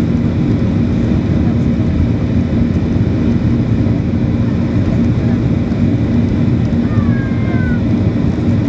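Cabin noise of a Boeing 737-500 climbing just after take-off, heard inside the cabin by the wing: the CFM56-3 turbofan engines running at climb power with rushing air, a loud steady noise with a steady low hum.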